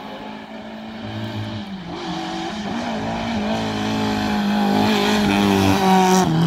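Rally car engine revving hard as the car approaches at speed, growing steadily louder. The engine note falls and climbs again about two seconds in, and falls again near the end.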